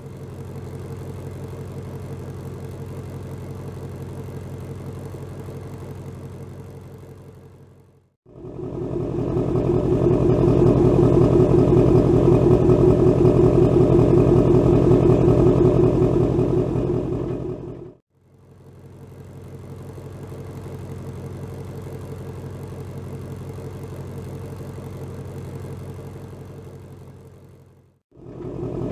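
Two Shelby Mustang V8s idling steadily in turn. First the 2020 Shelby GT500's supercharged 5.2-litre V8 runs for about eight seconds. Then, from about eight seconds in, the louder 2019 Shelby GT350's flat-plane-crank 5.2-litre V8 runs for about ten seconds. The quieter GT500 idle returns for the last ten seconds. Each clip fades in and out.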